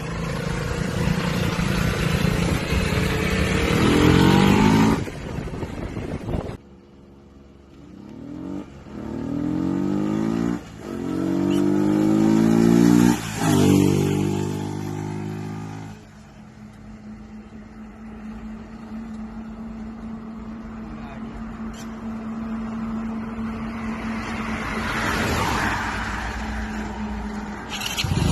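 Yamaha R15 V2's single-cylinder engine with a K&N air filter, revving and accelerating, its pitch rising and breaking at each gear change. Midway it settles into a steady drone for the rest of the time.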